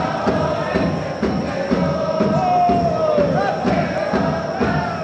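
Football supporters chanting together in the stands, sung in unison over a steady drumbeat.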